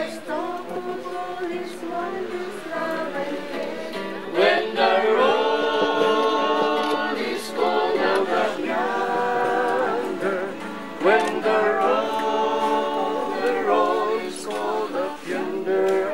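A group of voices singing together, growing louder about four seconds in.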